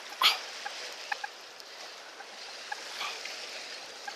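Steady wash of the sea at a harbour shore, with a brief sharp swish about a quarter second in.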